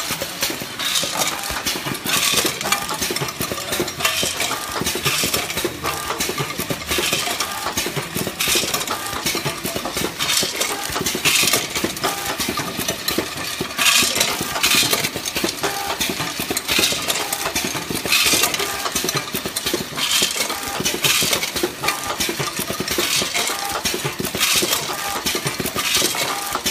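Automatic mothball counting and bagging machine running: a dense, continuous rattle of hard mothballs clattering through the machine's feeder, swelling louder every couple of seconds.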